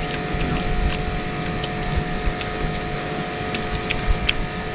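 Steady machine hum with a faint constant whine in it, and a few light clicks of chopsticks and a metal spoon against a noodle bowl during eating.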